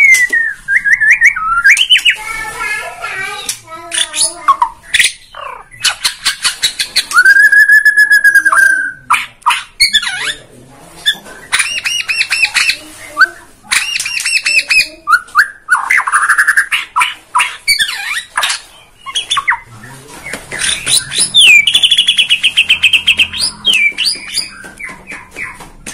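Caged white-rumped shama (Bornean murai batu) singing a loud, varied song. It mixes gliding whistles, one long held whistle about seven seconds in, and fast rattling, clicking phrases, with only short pauses.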